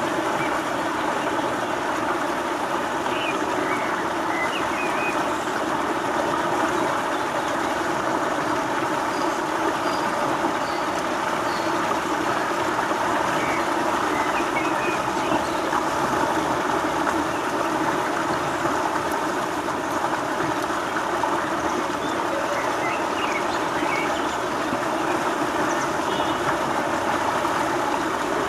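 Steady rush of shallow flowing water over stones, with a few short high chirps here and there.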